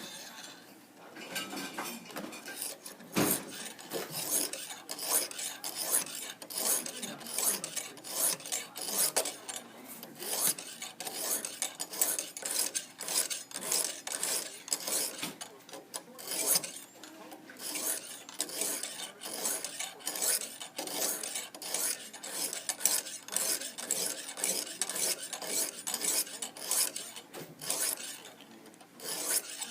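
Lansky sharpening-kit hone on its guide rod being drawn over a clamped knife edge at a fixed 20-degree angle, in quick repeated scraping strokes of about two to three a second. There is a single low knock about three seconds in and a brief pause near the end.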